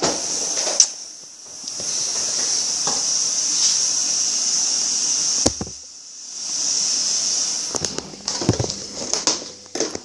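A steady high hiss that swells and fades in three long stretches, with a knock about five and a half seconds in and a run of clicks and knocks near the end.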